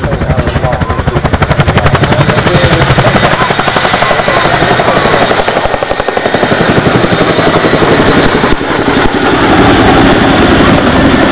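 Boeing Chinook HC Mk2/2A tandem-rotor helicopter, its twin rotors beating out a rapid, steady thudding. A steady high whine runs over it, growing stronger about two seconds in.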